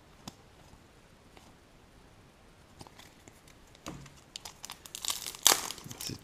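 A trading-card pack wrapper being torn open and crinkled by hand, after a few light clicks of cards being handled. The crinkling starts about four and a half seconds in and is loudest near the end.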